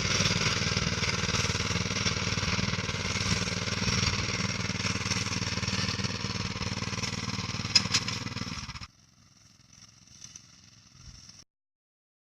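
Small engine of a home-built farm machine running steadily with a fast, even chug, with a couple of sharp clicks just before the sound cuts off abruptly about nine seconds in. Only faint background noise follows.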